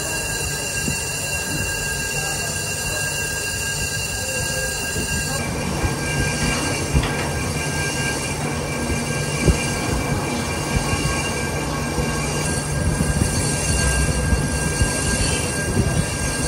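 Metal lathe taking a facing cut across the steel friction face of a clutch flywheel: a steady cutting and running sound with several steady high tones in it. The sound grows fuller about five seconds in, with a few light clicks.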